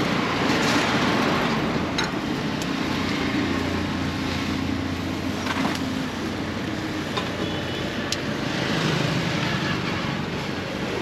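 Steady road-traffic noise beside a roadside grill stall, with a low hum underneath and a few sharp clicks, about two, six and eight seconds in.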